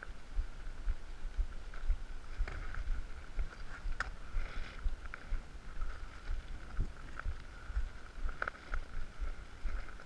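Wind buffeting an action camera's microphone in uneven low gusts, over a faint steady high tone, with a few sharp clicks and knocks, one about four seconds in and one near the end.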